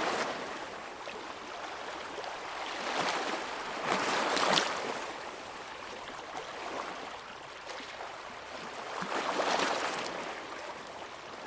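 Shallow sea water at low tide lapping and splashing against the shore, rising in two larger washes, one about three to four and a half seconds in and one around nine to ten seconds in.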